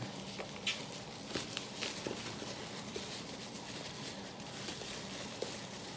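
Faint handling noise of a small figurine box being turned over: scattered light clicks and taps of cardboard and plastic packaging over a low steady hum.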